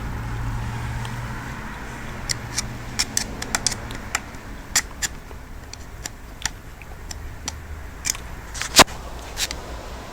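Light scattered clicks and taps of small parts and tools being handled on a transmission case while its connector sleeves are worked out, with one sharper knock near the end.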